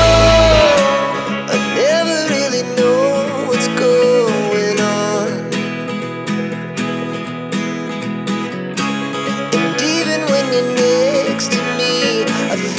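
Background music with plucked-string notes under a wavering melody line.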